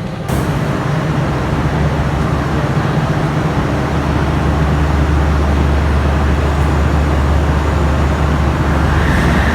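Train running, a steady low drone and rumble that starts abruptly and slowly grows louder.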